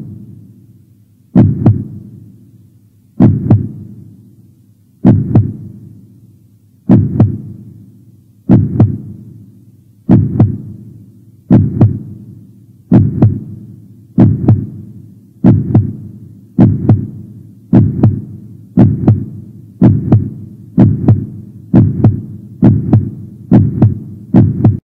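Deep single thuds like a slowed heartbeat, each one dying away slowly. They come about every two seconds at first and speed up steadily to about one a second near the end.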